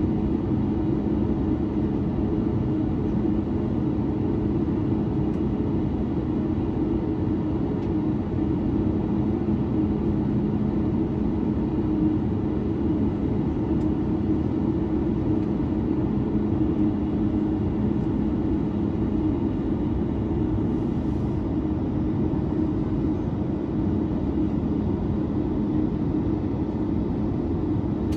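Boeing 737-9 Max's CFM LEAP-1B engines heard from inside the cabin, a steady drone with a constant low hum that neither spools up nor down.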